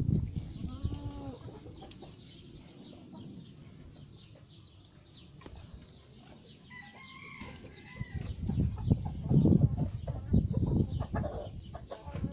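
Chickens calling in a farmyard pen: a short call about a second in and a longer, higher one about seven seconds in. Bursts of loud low rustling noise at the start and again between about 8 and 11 seconds in.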